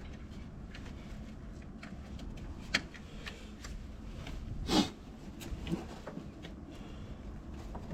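Handling noises during work on a car: scattered light clicks and knocks, a sharp click a little before halfway, and a short squeaking scrape about halfway through.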